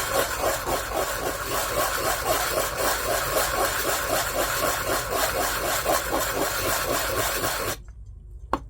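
A 3D-printed plastic part rubbed back and forth on sandpaper by hand in quick, even strokes, about four a second, sanding its face flat and square. The sanding stops abruptly near the end, followed by a single light click.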